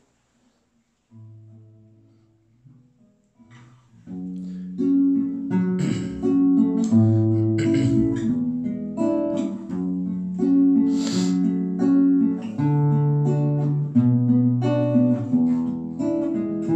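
Acoustic guitar playing the introduction to a hymn: a few soft low notes after about a second, then fuller strummed chords from about four seconds in.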